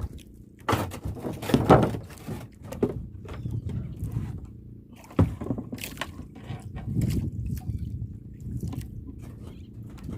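Water sloshing and splashing against a small wooden fishing boat's hull, with irregular knocks and clatter on board.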